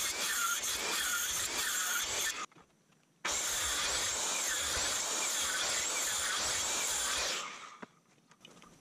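Handsaw cutting through a spruce log in quick, even strokes, about two a second. The sawing breaks off briefly about two and a half seconds in, resumes, and stops near the end.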